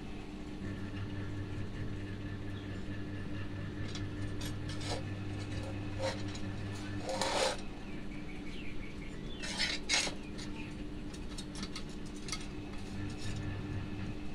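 Light clinks and taps of small metal parts being handled, with a louder metallic clatter twice, about seven and ten seconds in, over a steady electrical hum that drops out about six seconds in and comes back near the end.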